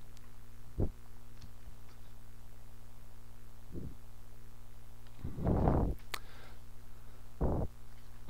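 Steady low electrical hum on the recording, with a few short soft noises: one about a second in, a louder one about five and a half seconds in, and another near the end.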